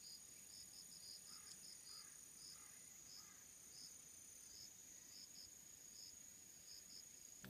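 Faint insects trilling: a steady high-pitched trill, a second, higher trill that drops out about three seconds in, and short high chirps at irregular intervals.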